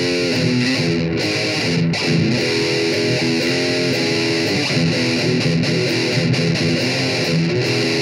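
Distorted electric guitar playing a fast, heavy riff of quickly repeated notes, with short breaks about one and two seconds in.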